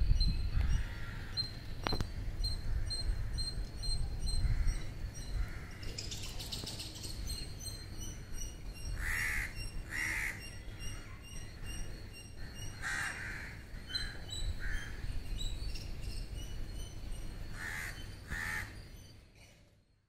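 Crows cawing in short calls, several in quick pairs, over steady high chirping of small birds and a low rumble. The sound fades out near the end.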